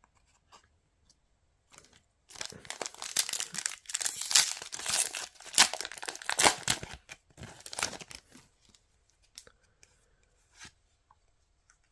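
A trading-card booster pack wrapper being torn open and crinkled: a dense crackling that starts about two seconds in and lasts some six seconds, followed by a few faint clicks.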